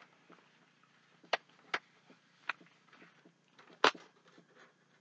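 A few brief clicks and light rustles of items and packaging being handled, four in about three seconds, the loudest near the end.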